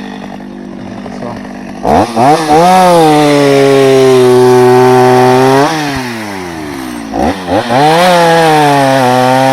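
Two-stroke chainsaw idling, then revved up at about two seconds and cutting into firewood for about four seconds before dropping back to idle. It is revved and cutting again near the end.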